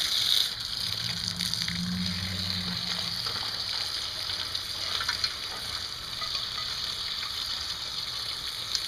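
Hot cooking water and boiled crayfish poured from a pot into a stainless steel colander, the water hissing as it drains through the holes onto concrete, with a few light clicks of shells tumbling in about five seconds in.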